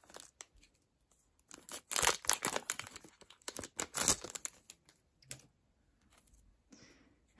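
Foil trading-card booster pack being torn open and its wrapper crinkled, in several short bursts over the first half, followed by a few faint clicks.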